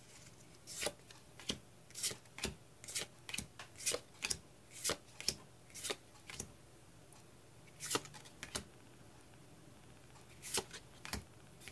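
Pokémon trading cards from a booster pack flipped through one by one, each card slid off the stack with a short snap, about two a second, then a pause and a few more flips near the end.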